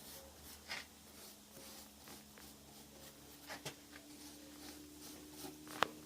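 Quiet handling noises: faint scraping and a few light taps, with one sharp click near the end.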